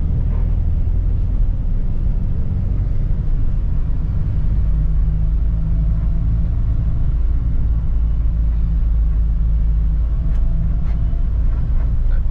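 Steady low rumble of a moving road vehicle: an engine hum with road noise, even throughout.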